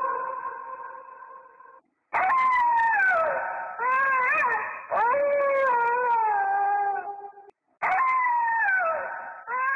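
A run of dog-like howling cries, about five of them. Each is high, wavers, and slides down in pitch over a second or two, with two brief near-silent breaks between them. It is heard through a thin, low-quality recording.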